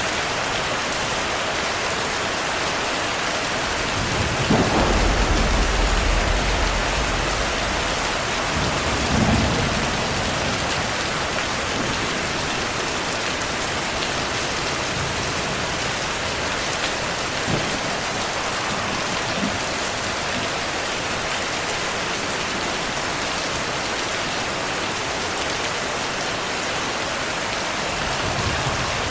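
Heavy steady rain with thunder: a long low rumble about four seconds in lasting several seconds, a shorter rumble near ten seconds, and a couple of faint distant cracks later.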